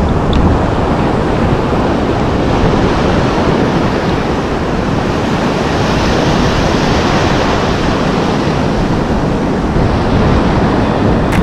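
Ocean surf breaking and washing over the shallows, a steady rushing noise.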